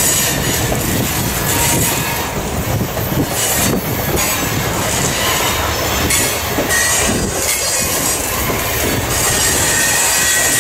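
Loaded covered hopper grain cars of a freight train rolling past, the steel wheels rumbling and clattering steadily over the rails, with high-pitched wheel squeal that comes and goes.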